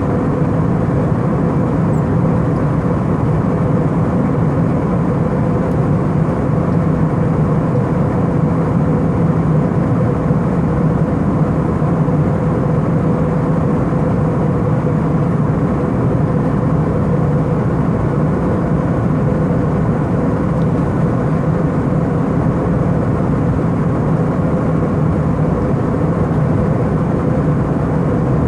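Steady in-flight cabin drone of an Airbus A319: engine and airflow noise running evenly, with a faint steady hum underneath.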